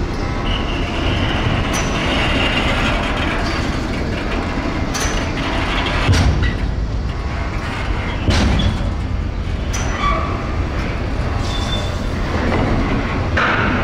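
Freight wagons carrying semi-trailers rolling slowly over dockside track: a steady low rumble of steel wheels, short high-pitched wheel squeals on the curving rails, and a few sharp clicks over rail joints and points.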